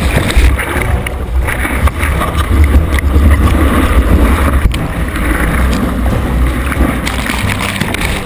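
Seawater rushing and splashing over a surfboard-mounted action camera as the board rides a breaking wave, with water and wind buffeting the microphone into a heavy low rumble.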